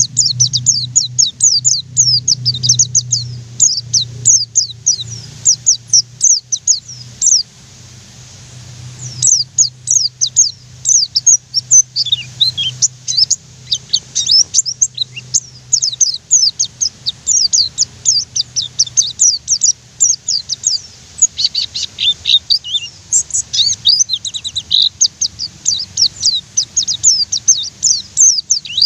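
White-eye (pleci) singing in fast rolling runs: dense streams of quick, high, downward-slurred notes, with a short lull about eight seconds in. A low steady hum lies underneath.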